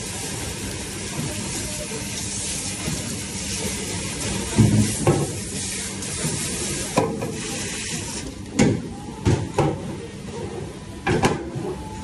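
Commercial pre-rinse spray nozzle hissing as water sprays onto a stainless steel pan, with the water splashing. The spray thins after about seven seconds, and several sharp metal clanks and knocks of stainless pans being handled come through the second half.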